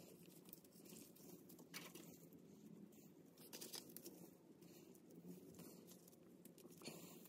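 Near silence, with faint scattered clicks and rustles of greased steel differential shims being handled in nitrile-gloved hands.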